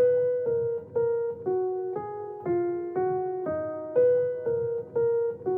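Background music: a slow piano or electric-piano melody, one note struck about every half second, each note fading before the next.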